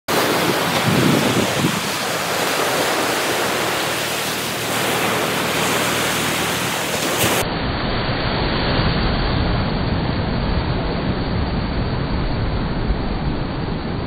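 Gulf of Mexico surf washing up onto a sandy beach, a steady rushing noise, with wind on the microphone. About seven seconds in, the sound changes abruptly to a duller rush with more low rumble.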